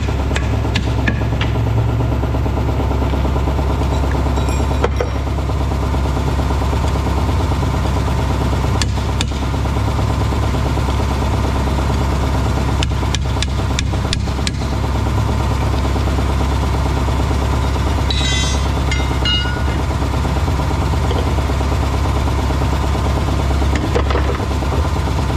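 An engine idling steadily under the whole stretch, with sharp metal clanks from a hammer and tire bar working a steel wheel rim: a few at the start and a quick run of them past the middle.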